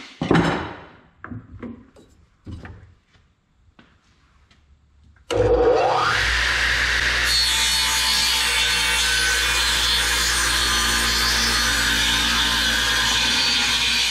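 A few scattered knocks, then about five seconds in a radial arm saw switches on with a rising whine as the blade spins up, and runs steadily as it cuts across a cherry plank.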